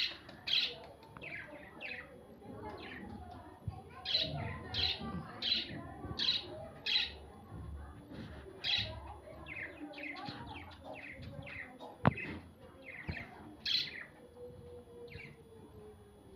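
A bird chirping in a long run of short, sharp calls, roughly one or two a second, with a single sharp click about twelve seconds in.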